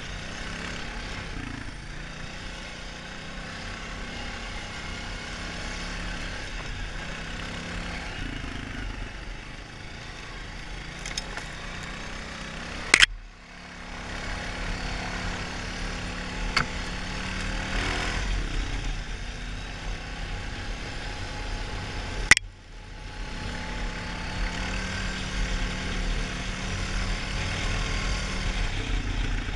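Honda 450 ATV's single-cylinder four-stroke engine running while being ridden, its note rising and falling with the throttle. Two loud sharp knocks, about nine seconds apart, each followed by a brief drop in level.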